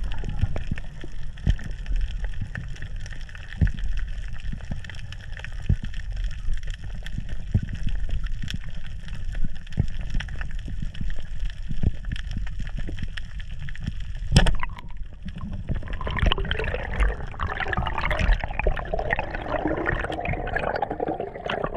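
Water heard through an underwater camera: a low rush with scattered clicks, one sharp crack a little past halfway, then louder bubbling and gurgling for the last several seconds.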